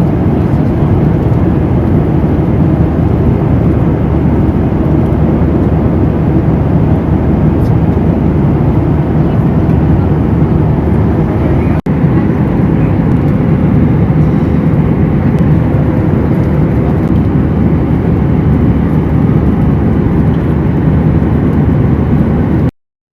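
Steady, loud drone of a jet airliner heard from inside the cabin: engine and airflow noise, strongest in the low range. It drops out for an instant about halfway through and cuts off abruptly near the end.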